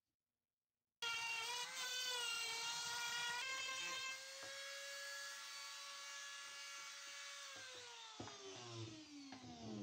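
Handheld electric rotary tool switched on abruptly about a second in and whining at high speed, its pitch wavering for the first couple of seconds, then steady. Near the end the pitch falls steadily as the tool winds down.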